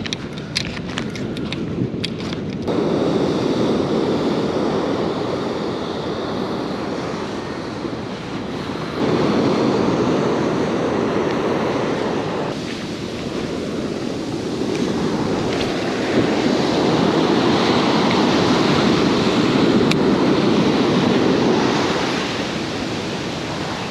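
Ocean surf breaking and washing up a sandy beach, with wind on the microphone, the rush swelling and easing in long surges. In the first couple of seconds there is crinkling and clicking as a plastic bag of soft fishing bait is handled.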